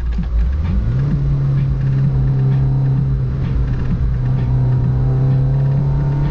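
Peugeot 205's engine running on the road: an uneven engine note for about a second, then a steady deep drone at constant revs.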